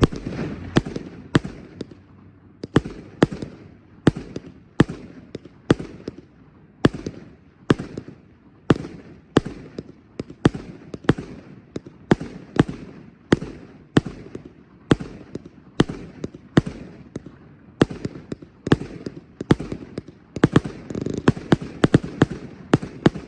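Howitzer Barrage 1.4G salute cake firing: a steady string of sharp salute reports, about two a second, each with a short echoing tail. The reports come in a denser cluster near the end.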